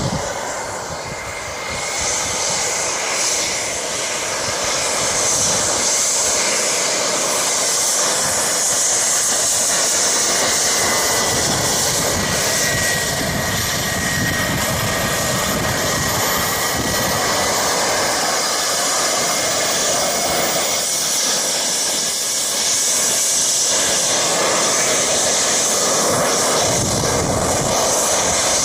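Jet turbine engine of a hydro boat running with a loud, steady rushing roar. A thin high whine dips slightly in pitch and rises again through the middle.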